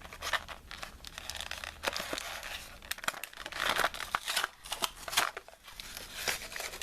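Plastic blister packaging of a trading-card pack being handled and torn open: crinkling and tearing with many small clicks and crackles, loudest a little over halfway through.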